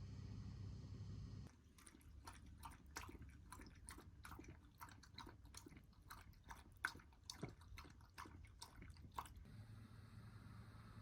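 Quiet, irregular wet clicking and smacking of a mouth, several clicks a second, starting about a second and a half in and stopping near the end.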